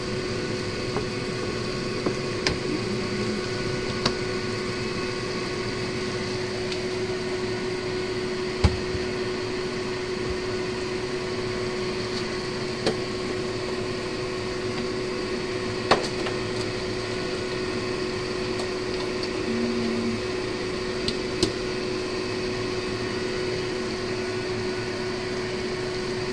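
A steady mechanical hum with one constant tone runs throughout, and a wooden spatula knocks sharply against a wok half a dozen times as thick rice-flour batter is stirred.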